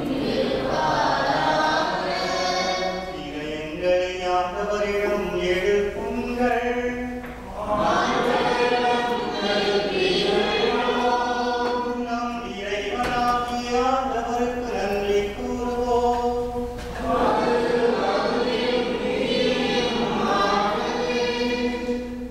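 Hymn singing by a group of voices led by a priest, in long phrases of held notes with short breaths about a third and three quarters of the way through.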